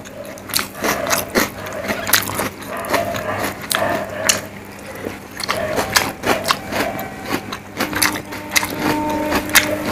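Close-miked eating sounds of rice and fish curry eaten by hand: wet chewing with sharp lip and mouth clicks coming irregularly, and fingers squishing the rice and curry together on the plate.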